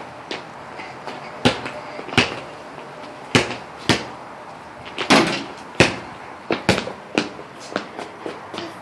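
A basketball bouncing on a concrete floor: a series of irregular thumps, some single and some in quick pairs.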